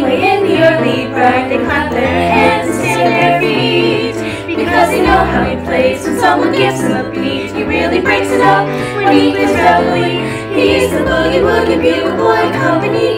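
Female choir singing the swing tune in close harmony, with many voices layered together. Under the voices runs a bass line that steps from note to note.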